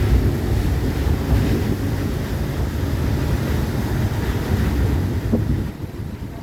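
Wind buffeting the microphone over the low road and engine rumble of a moving songthaew, an open-backed pickup bus; the rumble drops off suddenly near the end.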